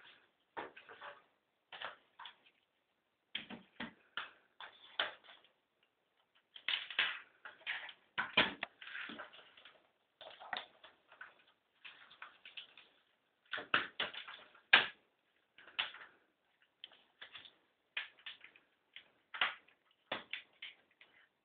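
Irregular clicks, clacks and knocks of small plastic computer accessories being handled and set down on a wooden table, with a couple of louder knocks partway through.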